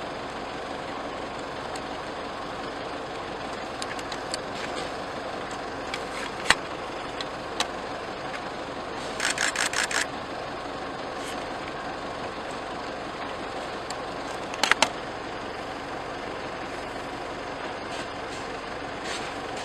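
Vehicle engine idling steadily, with a few sharp clicks, a quick run of about five cracks about nine seconds in, and two sharp cracks close together near the fifteen-second mark.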